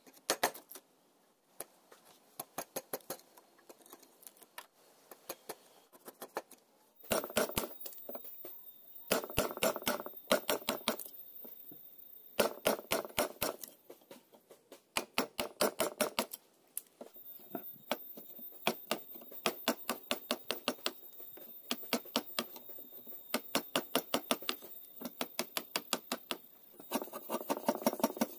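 Steel wood chisel cutting into hardwood by hand: runs of quick sharp clicks, several a second, with stretches of scraping and crackling as shavings are cut.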